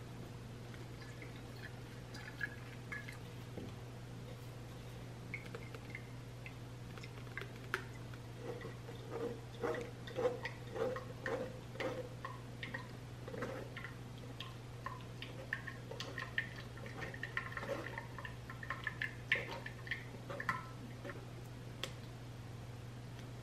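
Metal spoon scraping and tapping in a fine-mesh metal strainer, pressing ginger pulp so its juice drips into a glass jug below: a run of small irregular scrapes and clicks, thickest in the middle, over a steady low hum.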